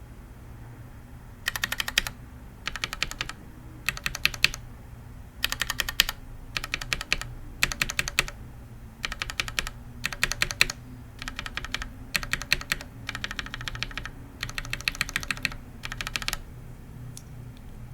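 Retool MX Black linear switches on an undampened Think 6.5 hotswap mechanical keyboard, stock and lubed switches tapped by turns. They come in about a dozen short runs of rapid keystrokes, starting about a second and a half in and stopping a little before the end.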